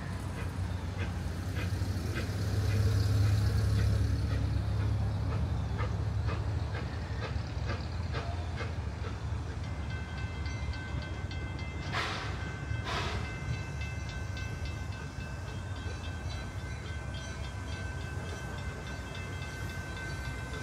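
Steam train running slowly on the track: a steady low rumble with a faint regular ticking, about two a second. About halfway through a faint steady high tone sets in, followed by two sharp knocks about a second apart.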